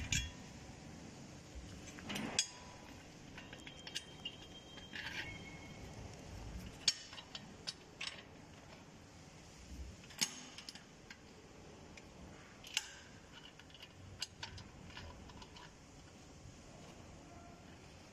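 Scattered sharp metallic clicks and clinks a second or more apart, from a hand handling the clamps and fittings on a stainless-steel mixing tank's lid, over faint steady background noise.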